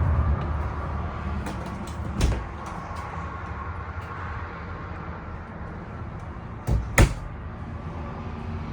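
Cabinet doors in a travel trailer shutting: one knock about two seconds in and a sharper double knock near seven seconds, over a steady low rumble.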